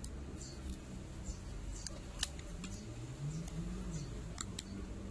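Plastic back cover of a Samsung Galaxy A31 being pried off the frame with a plastic card, its retaining clips giving several sharp clicks as they snap loose.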